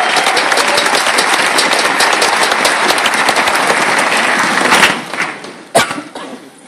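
Audience applauding, dying away about five seconds in, followed by a single sharp knock near the end.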